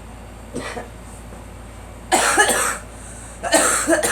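A girl coughing: a faint short cough near the start, then two loud fits of several rapid coughs each, about two seconds in and again near the end.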